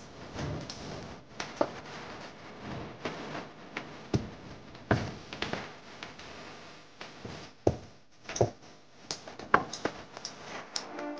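Wooden rolling pins rolling out dough on wooden boards, with irregular sharp knocks and taps as the pins and hands strike the boards.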